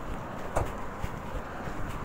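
Outdoor ambience: wind on the phone's microphone over a steady distant traffic hum, with a few footsteps on dirt ground, about two a second.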